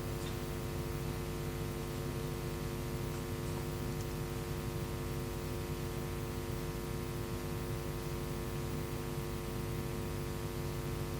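Steady electrical mains hum and buzz, a constant drone made of many even overtones with a faint hiss, unchanging throughout.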